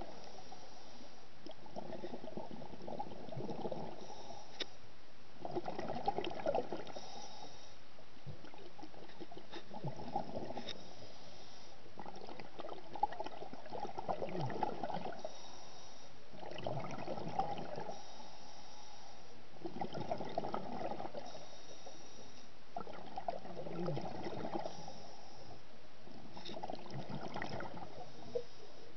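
Scuba diver breathing underwater through a regulator: bubbling, gurgling exhalations about every three to four seconds.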